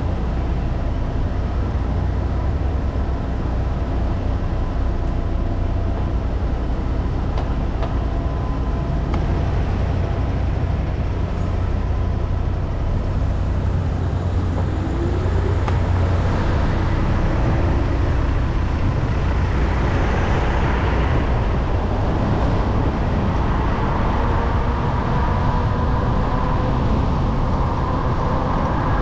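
City street traffic heard from a bicycle riding along the road, a continuous rush with a steady low rumble underneath. In the second half a few faint engine tones waver up and down.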